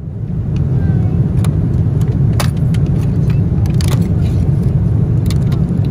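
Steady low rumble of a moving vehicle heard from inside, with a few small clicks and rattles scattered through it.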